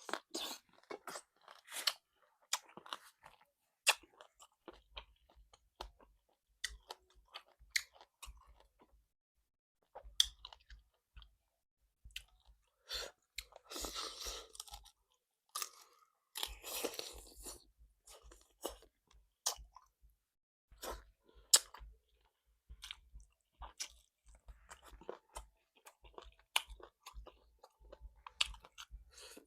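A person chewing and biting salt-baked chicken close to the microphone: scattered sharp wet mouth clicks and crunches, with two longer stretches of chewing noise around the middle.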